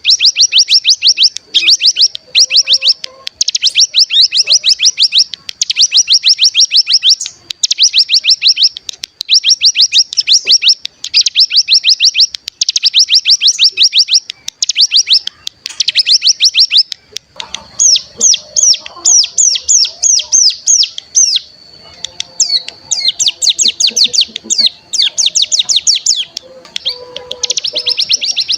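Ciblek gunung (cigun), a prinia, singing its rapid trilled 'bren' song: runs of high, fast-repeated notes about a second long, broken by short gaps. For a few seconds past the middle the notes come slower and more spaced before the fast trills return.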